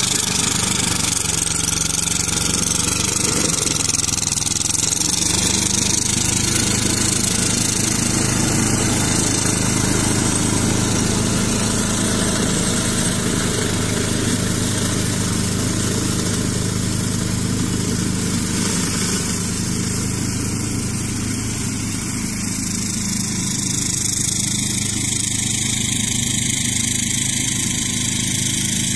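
Ferrari 95RS compact tractor's 40 hp Lombardini diesel engine running steadily under load while it drives a brush-cutter attachment through weeds, a steady engine note under a constant rushing hiss from the cutter. The sound grows slightly fainter past the middle as the tractor moves away.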